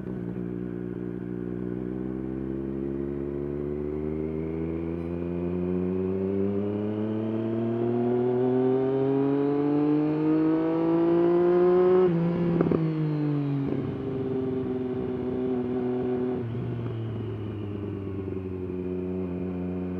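Triumph Daytona 765's three-cylinder engine pulling up through the revs, its pitch rising steadily for about twelve seconds and growing louder. Then the pitch drops sharply and the engine settles to a steadier, lower note, with one more small step down a few seconds later.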